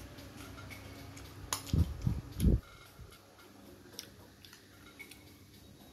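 Metal spoon clicking and scraping against a ceramic rice bowl while eating, in light scattered ticks. A sharp click about a second and a half in, then three dull low thumps just after, the loudest sounds here.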